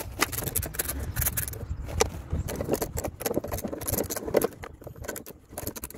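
Socket wrench clicking and metal tools rattling as the 10 mm bolts holding the air breather cover on a CFMOTO ZForce 800 are undone, with scrapes of the plastic cover being worked loose. Irregular sharp clicks and knocks come over a low steady rumble.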